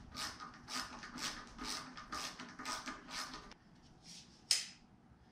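A hand tool being turned at a mountain-bike wheel's hub, making a short, sharp rasping click about twice a second. The clicks stop about three and a half seconds in, and one sharp click follows near the end.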